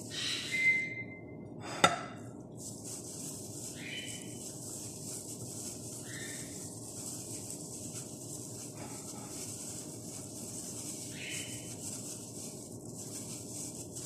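Plastic-gloved hand rubbing and pressing chicken pieces into dry rolled oats on a plate, heard as a few short scratchy rustles, with one sharp knock about two seconds in.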